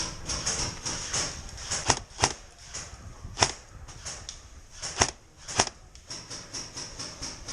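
Five sharp airsoft gun shots at irregular intervals, two of them close together, over a continuous rustling.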